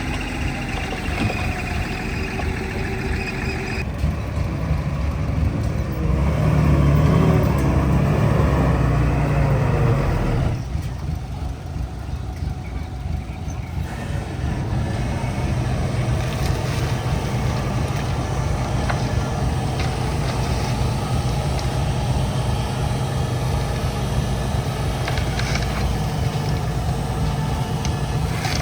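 Heavy construction-machine diesel engine running, louder for about four seconds starting around six seconds in, then dropping back and running steadily.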